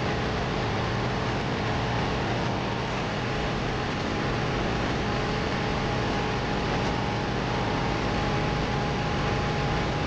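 Liebert computer-room air-conditioning unit running: a steady rush of blower air with a low hum and a faint steady tone.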